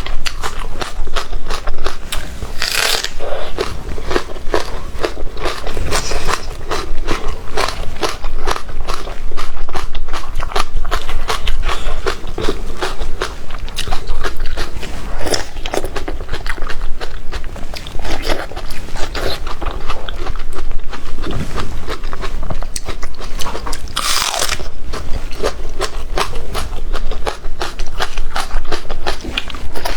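Close-miked eating: continuous chewing with crunchy bites and mouth clicks. Two louder crunching bites come about three seconds in and again about three-quarters of the way through.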